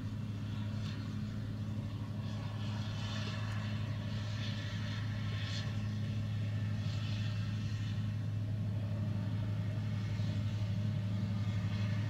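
Vehicle engine running with a steady low hum, heard from inside the ute's cabin, with a faint soft hiss over it.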